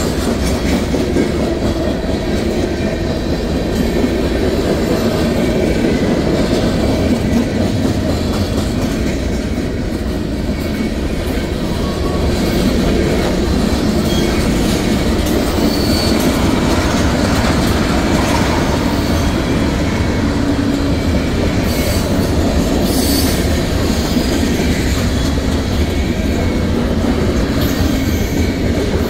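Freight cars of a mixed manifest train (boxcars, tank cars, covered hoppers) rolling steadily past, a continuous loud rumble of steel wheels on rail.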